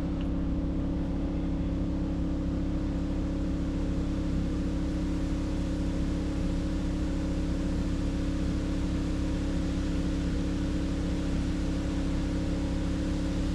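Portable generator running at a steady speed: a continuous, even engine hum with a constant pitch.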